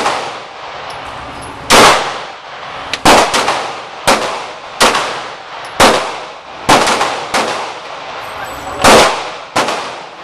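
9mm Glock pistol fired in a string of about ten shots at an uneven pace, roughly one a second or faster, each shot a sharp crack with a short decaying tail.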